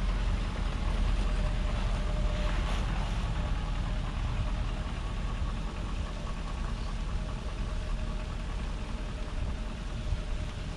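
A vehicle engine running steadily at low speed, a constant low rumble.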